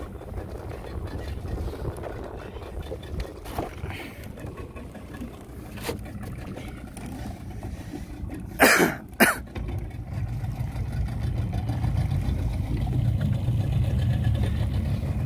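Outboard motor of a small open boat running at low speed, a steady low hum that becomes louder and fuller after about ten seconds. Two short, sharp, loud sounds come close together about nine seconds in.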